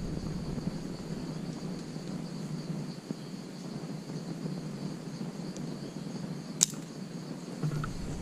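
Steady high insect chirring in the undergrowth, with faint rustling and one sharp click about two-thirds of the way through.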